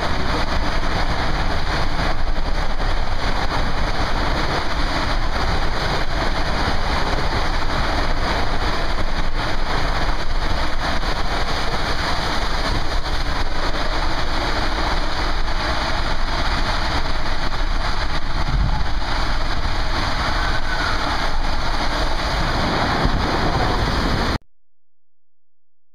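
Water rushing and splashing around a rider sliding down a water-coaster tube: a loud, steady rush of noise that cuts off suddenly near the end.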